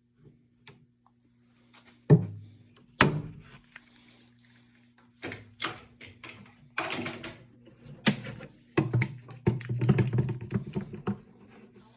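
Knocks and clatter of tools and parts being handled at a workbench: two sharp knocks about two and three seconds in, then a busy run of clicks and knocks toward the end.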